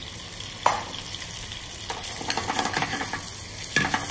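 Bacon and quartered button mushrooms sizzling in olive oil in a frying pan over a gas flame. There is one sharp knock about half a second in, then a metal spoon scrapes and clinks against the pan as the pieces are stirred.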